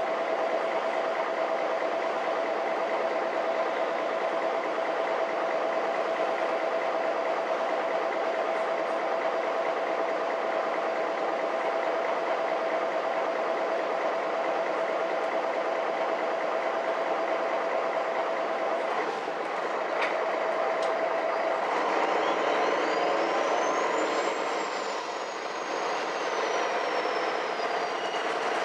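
Inside a MAN NG 313 articulated diesel bus: steady engine and running noise under a held drone. About twenty seconds in there is a click and the drone drops out, then a high whine rises and slowly falls away.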